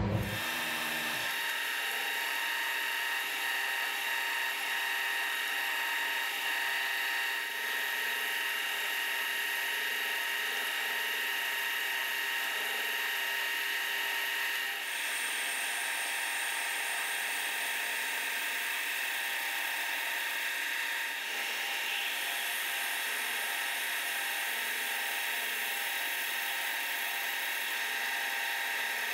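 Vertical milling machine spindle running steadily under load while a drill bores 3/8-inch holes in a metal part: a constant whining hum made of several steady tones.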